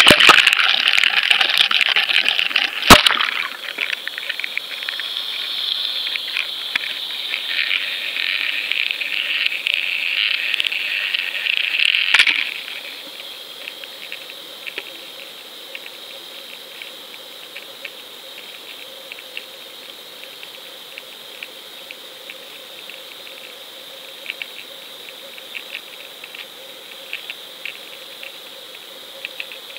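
Underwater sound picked up by a GoPro in its housing as it goes into a deep fishing hole: a loud rushing hiss of water and bubbles with a sharp knock about three seconds in, which drops off suddenly about twelve seconds in. After that, a faint steady underwater hiss with scattered small ticks and clicks.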